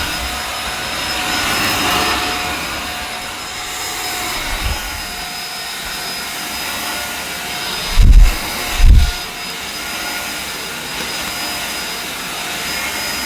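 EGL 600-watt handheld mains vacuum cleaner running steadily on a hard floor, its motor giving a constant high whine. Two loud, dull thuds come about a second apart, around two-thirds of the way through.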